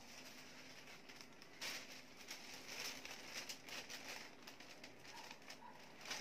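Faint rustling and crinkling of a thin paper kite sail, in several short bursts as the kite is handled and lifted.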